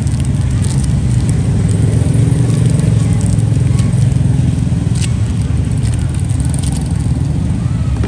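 Steady low rumble of passing road traffic, with a few faint short clicks over it.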